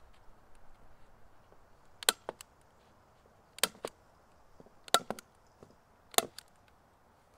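Handheld stapler fastening a paper target to a backing board: four sharp snaps about a second and a half apart, each followed by a fainter click.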